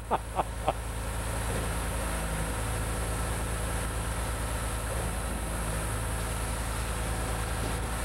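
REED A30HP concrete line pump running steadily with a low engine drone while pumping pea gravel concrete mix through a 2-inch rubber hose for block fill. A few short sharp sounds come in the first second.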